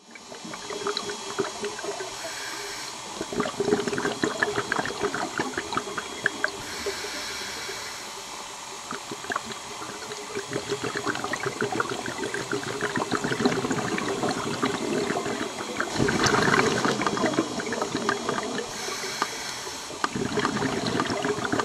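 Underwater sound of a scuba diver breathing through a regulator: exhaled bubbles gurgling in swells every few seconds, over a steady fine crackling.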